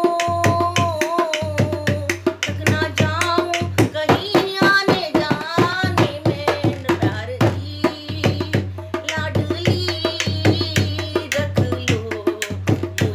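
A woman singing a Hindi devotional bhajan to Radha, playing her own dholak with both hands in a fast, steady beat.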